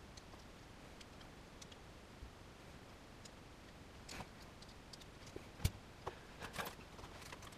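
Scattered light clicks and ticks of small plastic and metal car key fob parts being handled: the fob case and its key blade. There is a sharper click a little past halfway and a few more near the end.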